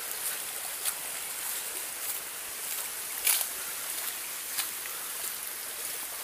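Footsteps on a dry grassy, leaf-strewn path, a short crackle about every second, over a steady hiss.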